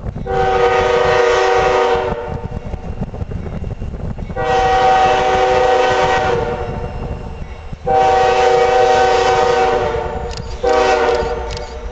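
CSX freight locomotive's air horn sounding a chord of several tones in three long blasts and a shorter fourth near the end, over the steady low rumble of the approaching diesel train.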